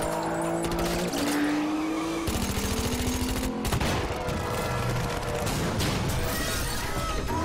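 Car-chase film soundtrack: an engine revving up through the gears, its pitch climbing and dropping back at each shift, then a rapid burst of gunfire and squealing tyres.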